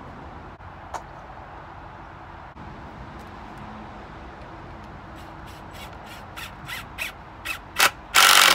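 Cordless drill boring a pilot hole into pallet wood: short bursts on the trigger from about five seconds in, growing louder and closer together, then a longer, louder burst of drilling near the end.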